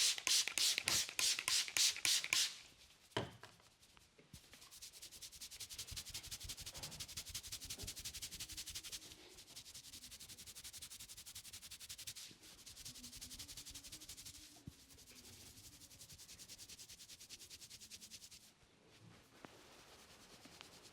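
Hands giving a head massage: quick strikes on the head about four a second for the first two and a half seconds, then a single sharp click, then fast, steady rubbing of the scalp and hair that grows softer near the end.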